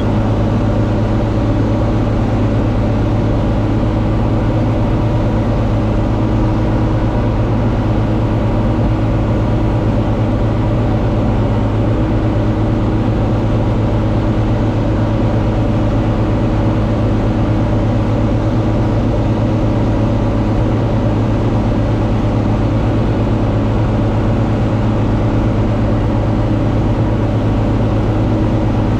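John Deere 4250 tractor's six-cylinder diesel engine running at a steady working speed while baling hay, a constant low drone.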